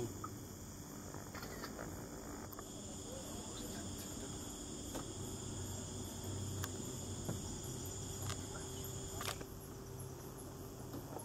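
Night insects chirring steadily in several high, continuous tones, with a low rumble underneath and a few faint clicks.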